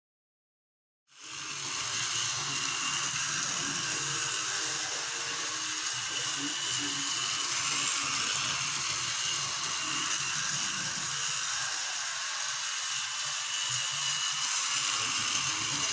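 Silence, then about a second in a Märklin model train running on its track starts suddenly: a steady whir of its small electric motor and wheels on the rails.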